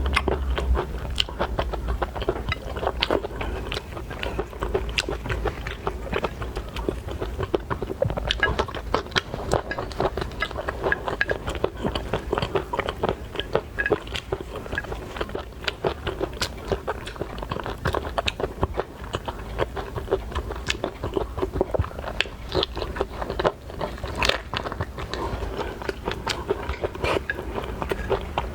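Close-miked chewing and biting of seafood: wet, crunchy bites and mouth sounds with many small irregular clicks.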